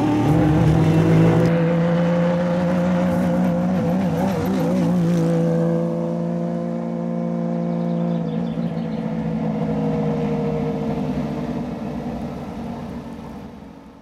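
Porsche 997 GT3 rally car's flat-six engine running at low, steady revs as the car rolls slowly past and away, with a brief wavering in pitch in the first few seconds; the sound fades out near the end.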